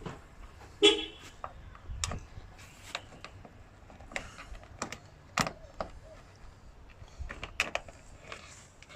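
Scattered clicks and knocks of hands working on a car door's plastic trim and weather-strip clips, irregular and sharp, with the loudest clack about a second in.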